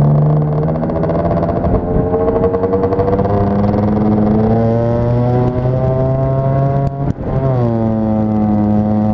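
Lambretta scooter's two-stroke single-cylinder engine running under way, its pitch dipping near two seconds in and then climbing steadily as it pulls. About seven seconds in the revs drop sharply, then climb again.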